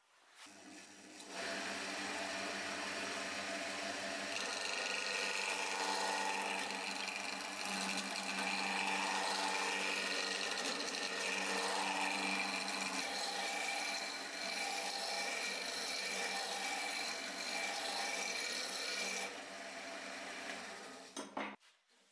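Wood lathe spinning a wooden spindle while a hand-held turning tool cuts it, a steady rough hiss of cutting over the lathe's steady hum. It starts about a second in and cuts off suddenly just before the end.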